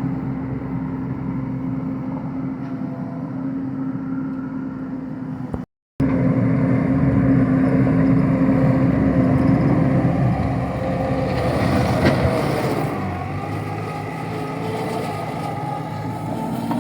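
Wacker Neuson mini skid steer engine running steadily while digging, with the sound cutting out briefly about six seconds in and its pitch shifting a little a few seconds later.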